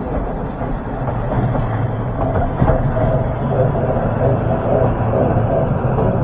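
Train running past close by on the Oigawa Railway track, a steady, loud running noise from wheels and rails that grows a little louder about a second in.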